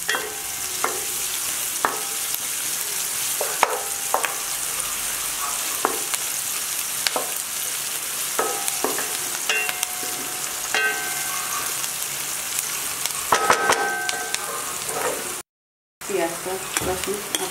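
Chopped onions sizzling in hot oil in a frying pan: a steady hiss, with a wooden spoon stirring them and knocking against the pan every second or two. The sound cuts out for a moment near the end.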